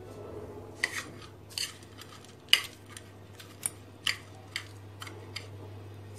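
A metal fork clinking against the bowls, about eight sharp, unevenly spaced taps, as egg-dipped chicken strips are lifted out and turned in crushed potato-chip crumbs.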